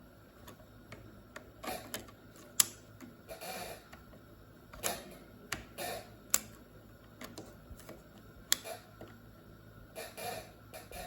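Hands fitting a RAM module back into an iMac's memory slot: scattered scraping and rustling handling noise with three sharp clicks, about a third of the way in, past the middle, and near the end.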